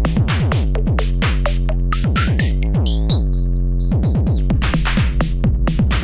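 Electronic background music with a steady drum-machine beat, and a synth tone that glides upward through the middle.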